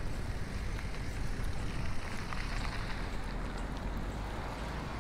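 Steady city street ambience: a low rumble of traffic with a few faint clicks.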